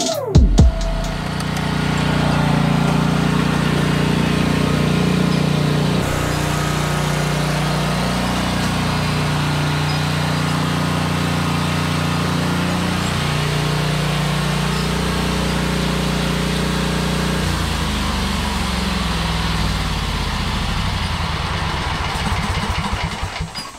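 Exmark Metro 36 commercial walk-behind mower engine running steadily, its pitch shifting about six seconds in and again later, then shutting off just before the end.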